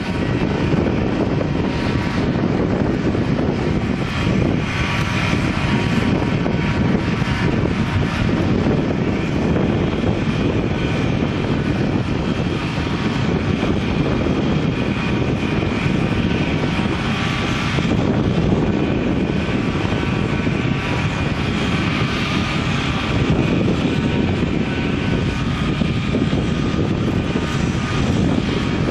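Komatsu D61PXi crawler bulldozer's diesel engine running steadily at work, a continuous heavy drone.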